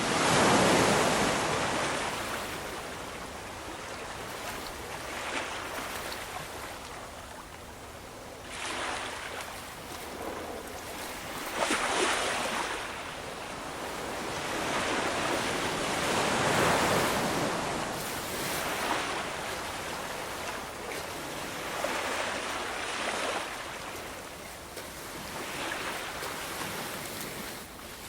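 Ocean waves washing in and breaking, in swells every few seconds, each one rising to a rushing peak and then fading. The loudest surges come right at the start and again about two-thirds of the way through.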